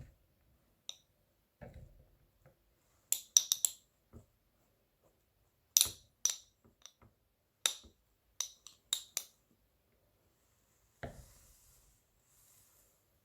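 Kitchen knife striking a cutting board while mincing garlic: sharp clicking taps in irregular clusters, one quick run of several taps, then a brief faint scrape near the end.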